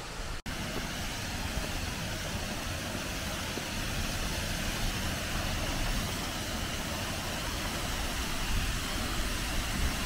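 Rushing water of a river and waterfalls, a steady, even noise with a low rumble. It drops out briefly about half a second in.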